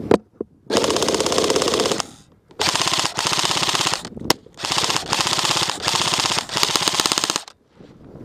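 Airsoft M4-style electric rifle firing on full auto: two quick single shots, then three long bursts of rapid fire, the last about three seconds long, with a lone shot between the second and third.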